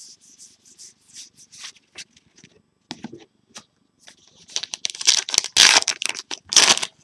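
Trading cards sliding over one another with quick swishes as a stack is flipped through, then a plastic card-pack wrapper crinkling loudly and tearing open over the last couple of seconds.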